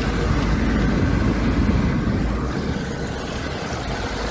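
Fast-flowing floodwater rushing along a street in heavy rain: a steady, loud rush of noise.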